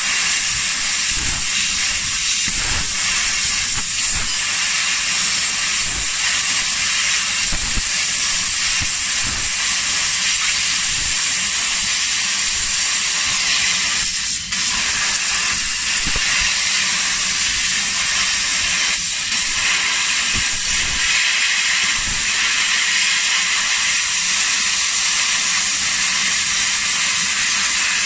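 Raytools fiber laser cutting head hissing steadily as the assist-gas jet blows through its nozzle while it cuts thin gold-coloured sheet metal, with a thin high whine under the hiss. The hiss dips briefly about halfway through.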